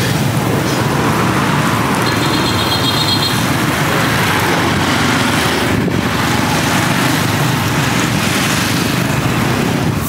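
Steady traffic noise of a busy street market, with passing motorbikes and vehicles.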